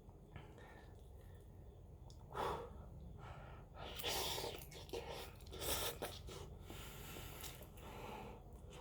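Quiet mouth sounds of a person eating instant noodles: three short, noisy rushes of air, about two and a half, four and six seconds in.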